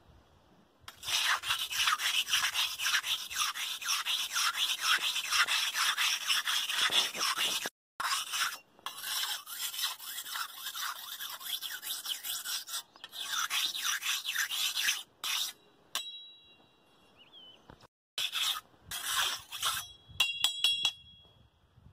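Steel machete blade being stroked back and forth across a large rough stone, a quick raspy scraping in runs of several seconds separated by short pauses: the blade is being sharpened on the rock.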